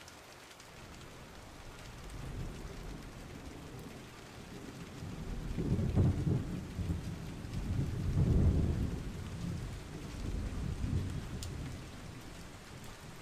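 Steady rain with rolling thunder: low rumbles swell and fade several times over the hiss of the rain, the loudest two near the middle.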